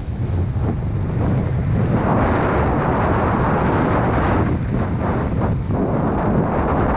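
Wind buffeting the camera microphone as a snowboard rides fast through deep powder, the board hissing through the snow; the rush gets louder about two seconds in.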